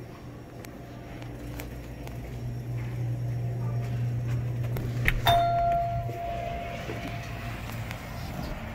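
A glass shop door is pushed open with a sharp click about five seconds in, setting off an electronic entry chime: one steady tone held for about two seconds. A low steady hum runs underneath.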